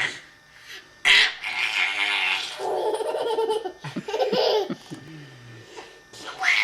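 Baby girl laughing in bursts and making sounds like a little laughing monster, starting about a second in.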